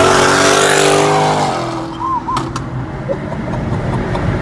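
Car engine pulling at high revs under hard acceleration, its note holding steady and then dropping and fading about a second and a half in as the throttle closes, leaving steady road noise heard from inside the car.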